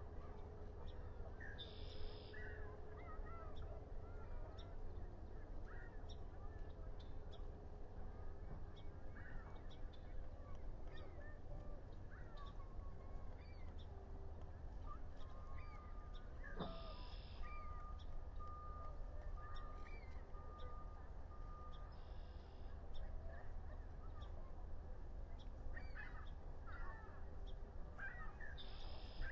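Wild birds calling outdoors, with many short chirps and calls scattered throughout over a steady low hum.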